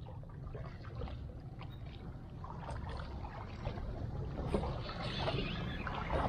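Sea water lapping and trickling against breakwater rocks over a steady low rumble. The small splashing ticks grow busier about halfway through.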